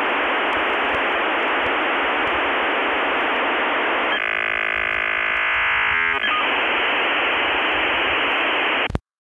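Radio-like static hiss, narrow in range, like sound through a radio or phone. About four seconds in it gives way to a steady buzz for about two seconds, then the hiss returns and cuts off suddenly near the end.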